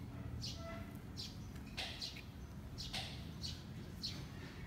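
Small frog giving short, high chirps, about seven of them at irregular intervals of roughly half a second.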